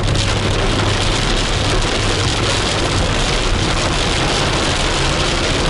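Rain pelting the roof and windshield of a moving car, heard from inside the cabin as a dense, steady hiss over a low, even hum from the engine and road.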